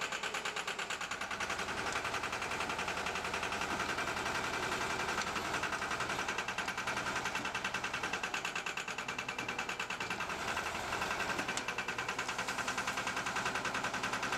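Bobcat M611 skid-steer loader's engine running with a fast, even pulsing while the loader works its bucket into a bank of earth.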